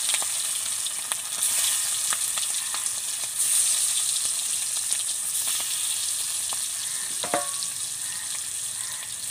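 Hilsa fish steaks sizzling and crackling in hot mustard oil in a kadai. The hiss swells a few times as more pieces are slipped into the oil.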